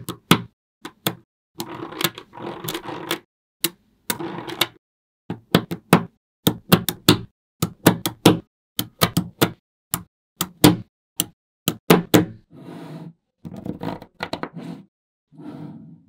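Small magnetic balls clicking and snapping together as strips and blocks of them are pressed onto a wall of balls: a fast, irregular run of sharp clicks, broken by short stretches of rattling as the balls shift and rub against each other.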